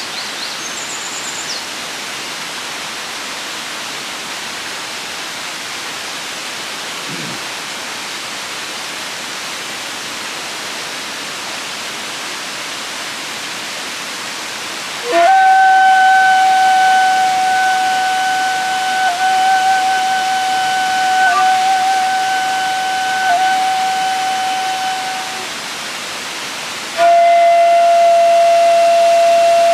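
Steady rush of a waterfall, then shakuhachi (end-blown bamboo flute) playing from about halfway in: a long held note with small flicks in pitch for about ten seconds, a brief break, and a second long note a little lower near the end.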